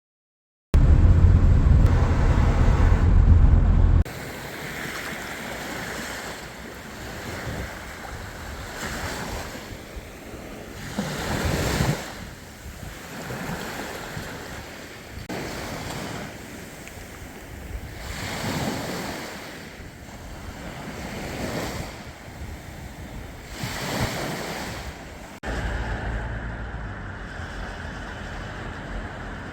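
Sea waves breaking on a beach, the wash of surf swelling every several seconds. Wind buffets the microphone with a heavy rumble for the first few seconds and again near the end.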